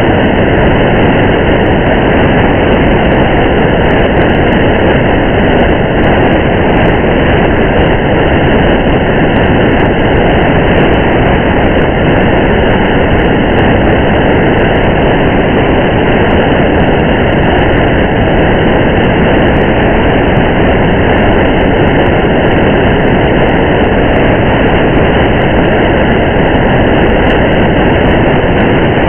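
Steady rain together with the road noise of a car driving on a highway, one loud, even, unbroken hiss.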